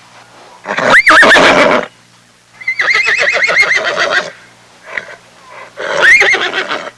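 Horse neighing three times: a short neigh about a second in, a longer quavering whinny around three seconds in, and another short neigh near the end.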